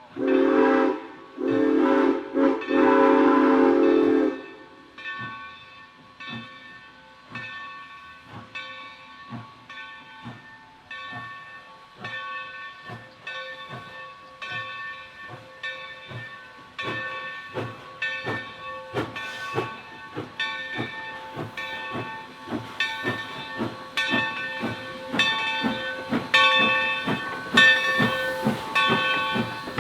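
Steam locomotive blowing two whistle blasts, then chuffing as it pulls away, its exhaust beats steady at first and gradually quickening and getting louder.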